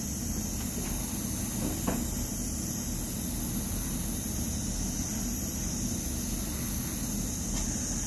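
Airbrush spraying paint: a steady hiss of air, with a low steady hum underneath.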